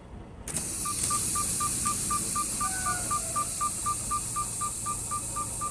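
Electronic beeper sounding a rapid, steady series of short single-pitch beeps, about four a second, starting about a second in over a steady hiss.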